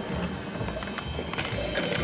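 Battery-powered BRIO wooden-railway train running along wooden track, its small motor whirring and its wheels clicking over the track joints, with background music.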